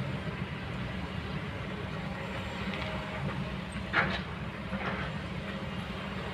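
Kobelco excavator's diesel engine running steadily, with a sharp knock about four seconds in and a weaker one just after.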